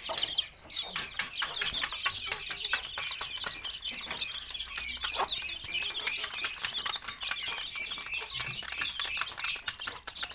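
A brood of desi chicks peeping constantly in many overlapping high chirps, with quick sharp ticks of beaks pecking at a steel feed tray.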